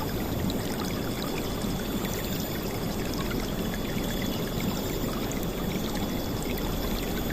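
River water flowing and splashing steadily, a dense rushing sound with small scattered splashes.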